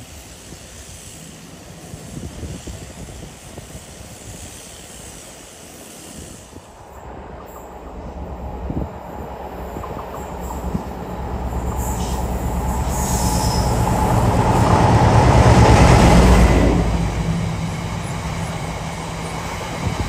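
Diesel freight locomotive approaching unseen, its engine growing steadily louder from about a third of the way in and loudest near the end, with the rumble of the train continuing after the peak.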